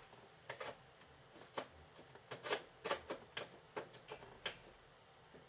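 About a dozen light, irregular clicks and clinks of metal hand tools being handled, as when picking out a socket and wrench.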